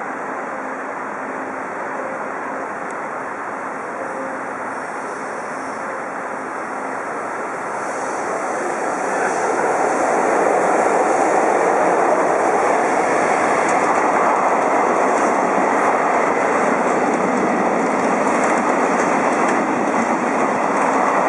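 Electric freight train running through a station: a steady rumble grows louder about eight seconds in as the EF66 locomotive arrives. Then the freight wagons pass in a continuous rush of wheel and rail noise, with faint clicks of wheels over rail joints.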